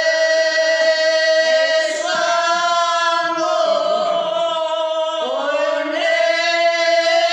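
Women singing together without accompaniment, holding long steady notes; between about two and six seconds in the voices move and waver before settling back on the held note.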